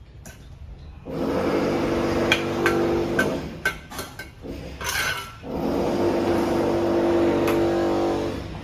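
A power tool running in two long bursts that start and stop abruptly, with several sharp ringing knocks in between.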